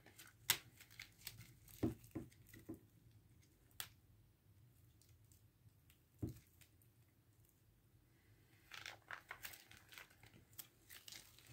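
Packaging on a desk calendar being picked at and crinkled while it is being opened: scattered faint clicks and crackles, a quiet spell in the middle, then a denser stretch of crinkling near the end.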